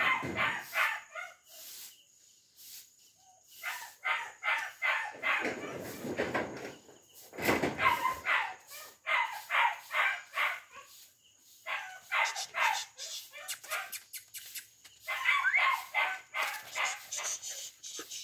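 Two-month-old German shepherd puppy giving high-pitched yaps and barks in several quick bursts, with short pauses between them.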